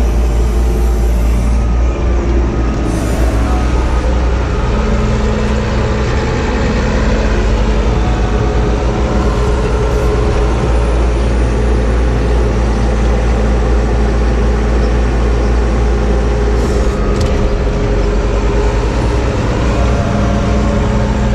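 Telehandler's diesel engine running steadily, heard from inside its cab as the machine moves, a low rumble with a pitched note that rises and falls slightly with engine speed.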